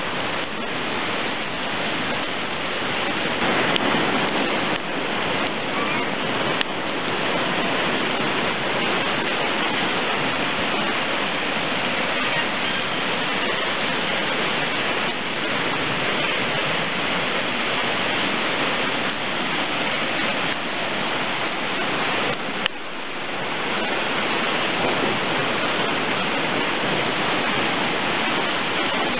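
Muddy floodwater rushing past in a fast torrent: a loud, steady rush of water.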